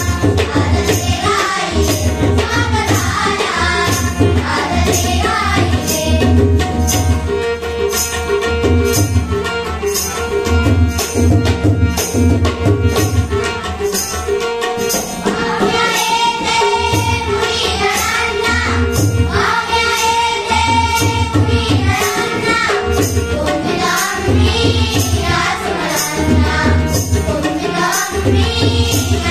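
A group of girls singing a welcome song (swagat geet) in unison over a rhythmic two-headed barrel drum, with a steady held tone underneath.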